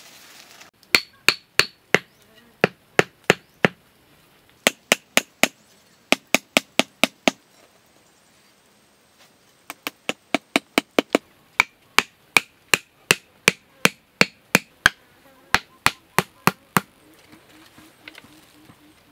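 A small hammer knocking on a wooden stick post: sharp, ringing knocks in quick runs of about three a second, with a pause of a couple of seconds in the middle.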